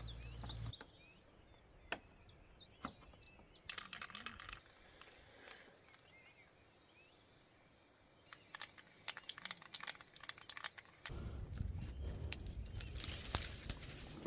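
Faint bird chirps, then a short hiss of aerosol spray paint about four seconds in. Scattered clicks and rustling of handling follow, growing louder near the end.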